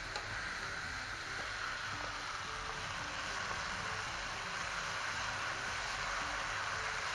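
Tomato and onion-paste masala frying in oil in a nonstick pan, a steady sizzle as it is stirred with a wooden spatula; the masala is being fried down until the oil separates.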